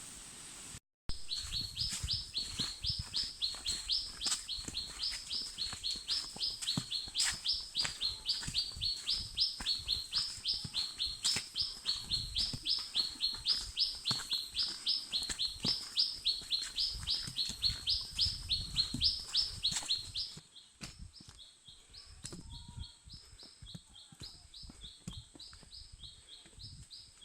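Forest wildlife calling: a high, rising chirp repeated very regularly about twice a second over a steady high-pitched whine. It starts abruptly about a second in and drops sharply quieter about 20 seconds in, with the chirping going on faintly.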